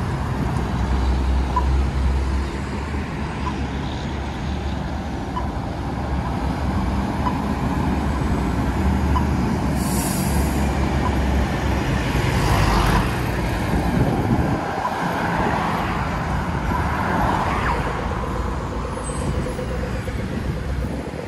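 Busy road traffic: vehicle engines rumble steadily as cars and trucks pass, with louder passes about halfway through and again a few seconds later. A faint regular tick, a little more than one a second, runs through the first half.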